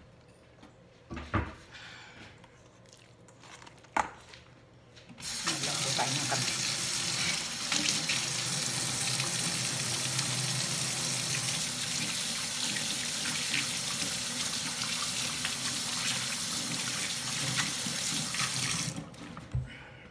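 Kitchen faucet running into a stainless steel sink while hands are washed under the stream. The water comes on about five seconds in, after a few faint knocks, runs steadily, and is shut off near the end.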